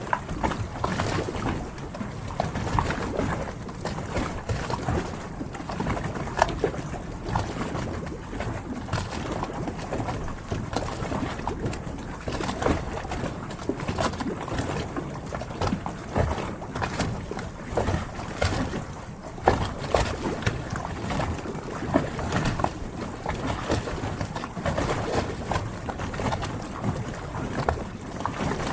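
Harbour water lapping and slapping against the hulls of moored yachts, a continuous wash broken by frequent small irregular knocks and splashes.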